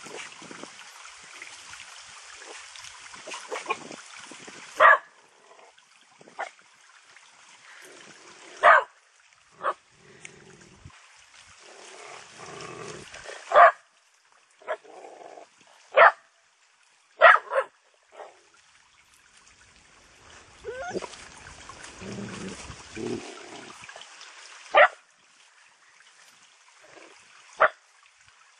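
Dogs barking: single short, sharp barks every few seconds, two in quick succession about halfway through, over a trickling brook.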